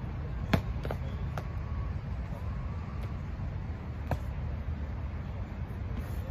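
Padded foam swords striking during sparring: a few sharp slaps, the loudest about half a second in, two lighter ones soon after and another about four seconds in, over a steady low rumble.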